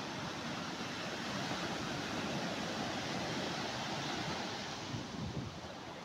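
Big surf breaking and washing up the beach: a steady noise of waves, a little louder in the middle and easing near the end.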